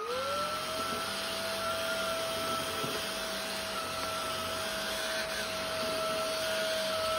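Hitachi Karu Pack Stick PKV-BK3K cordless stick vacuum running in standard mode. Its motor whine finishes spinning up and settles to a steady pitch about half a second in, over a steady rush of suction air.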